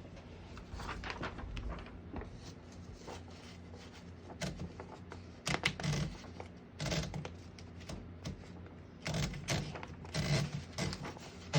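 Irregular clicks and clacks of a 1958 Remington Travel-Riter portable typewriter's mechanism being handled, coming in scattered clusters with short pauses between them.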